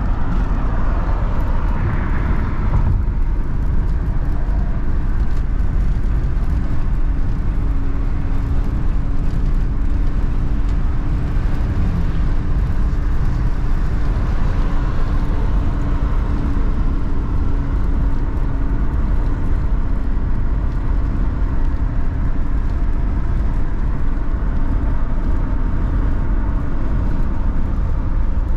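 A car driving: steady engine and road noise with a low, even drone.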